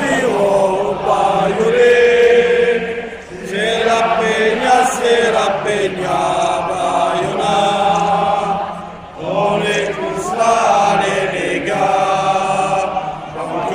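Stadium crowd of rugby supporters singing a chant together, in long sung phrases with short breaks between them.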